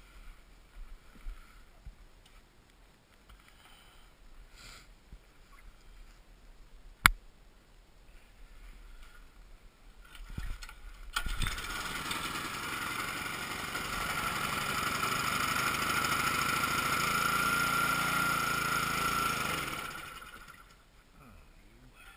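A single sharp click, then about halfway through an engine sound comes in suddenly, swells and dies away about nine seconds later.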